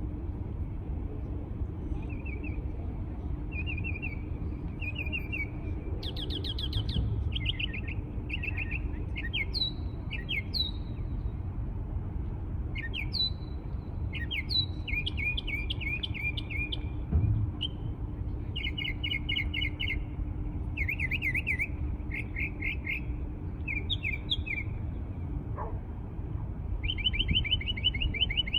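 A songbird singing a long series of short, rapidly repeated trilled phrases, one every second or so with a few short pauses, over a steady low rumble and faint hum.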